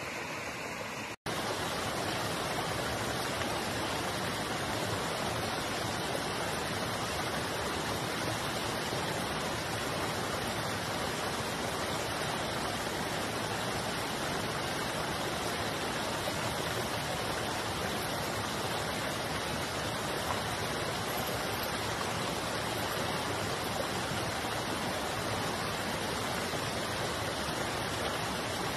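Steady rushing of a stream flowing over rocks, with a brief dropout about a second in.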